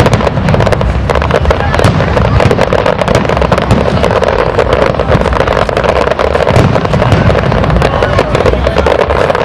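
Aerial fireworks shells bursting overhead: a dense, unbroken run of bangs and crackling pops, many in each second.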